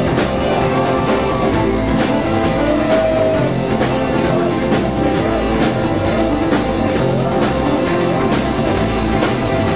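A live rock band playing, with guitar and a drum kit keeping a steady beat, heard from among the audience.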